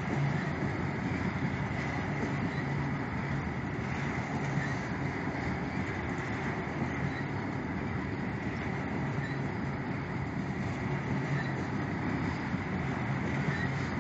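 Norfolk Southern freight train of tank cars rolling past steadily: the continuous noise of steel wheels running on the rails, even in level throughout.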